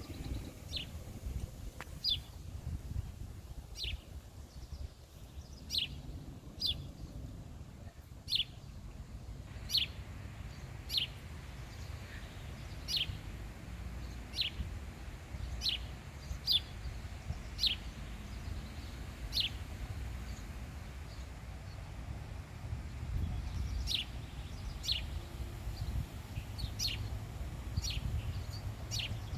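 A bird calling with short, sharp chirps that drop in pitch, repeated roughly once a second, over a low steady rumble.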